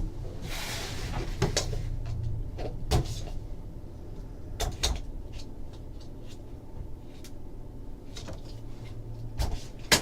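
A trading-card box and its packaging being handled: scattered light knocks and taps, with a brief rustle about half a second in and a firmer knock near the end, over a low steady hum.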